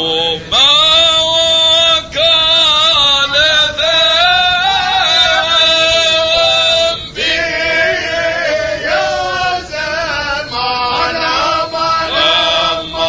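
Unaccompanied Arabic devotional chanting of a tahlila by a male singer: long, drawn-out melismatic phrases with wavering held notes, broken by short breaths about half a second in, at about two seconds and around seven seconds.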